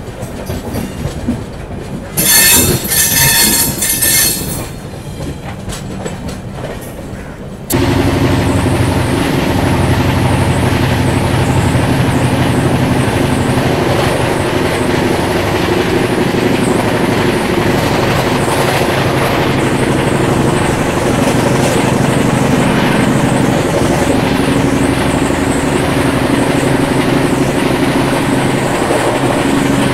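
Passenger train running on the rails, heard from on board. It is quieter at first, with a brief high-pitched squeal a couple of seconds in. At about eight seconds it jumps suddenly to a loud, steady running noise of the wheels on the track.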